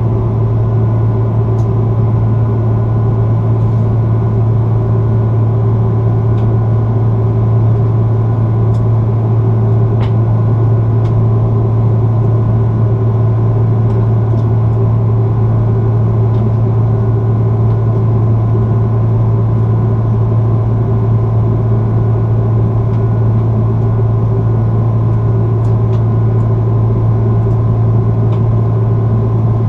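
Airbus A330-300 cabin noise during the climb, heard from a seat inside the cabin: a loud, steady drone of the Rolls-Royce Trent 700 engines and airflow, with a strong low hum and a few steady tones, and a few faint ticks.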